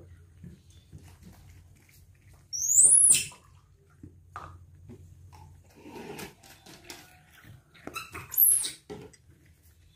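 Infant monkey giving two short, shrill squeals that rise in pitch, about three seconds in and again near the end, with soft clicks and rustles between them.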